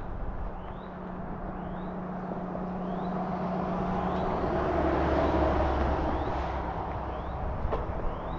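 Wind rushing over the microphone and tyre noise from a RadRover electric fat-tyre bike being ridden, swelling toward the middle and easing again. Under it runs a steady low hum that drops in pitch about halfway through, and faint short rising chirps repeat every half-second or so.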